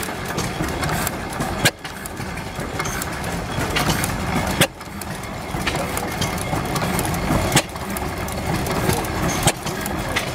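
1891 Van Duzen walking-beam gas engine running with a steady mechanical clatter, broken by a sharp crack every two to three seconds.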